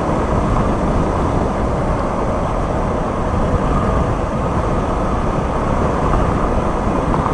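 Yamaha Lander 250 motorcycle riding on a dirt road: a steady rush of wind on the microphone with the single-cylinder engine running underneath, with no breaks or changes.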